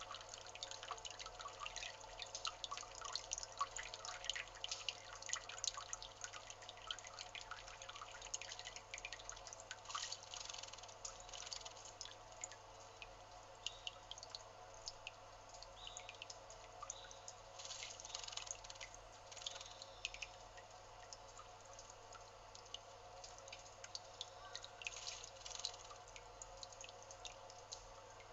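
Male narcissus flycatcher bathing in shallow water: bursts of small splashes and drips come in bouts several seconds apart, over a faint steady hum.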